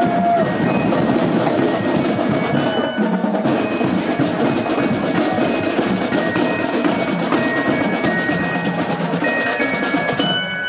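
Middle school marching band drumline playing a busy rhythm on snare drums, with sharp clicking strikes.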